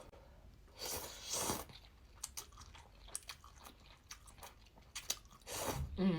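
Close-miked sounds of a person eating seafood ramen with fish balls and lettuce: chewing and crunching with many small clicks. Two longer, louder noisy sounds come about a second in and again near the end.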